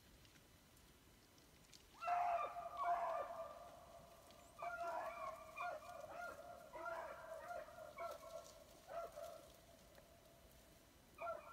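Beagles baying while running a track, a string of pitched bays starting about two seconds in, in bursts, with a brief lull before they start again near the end.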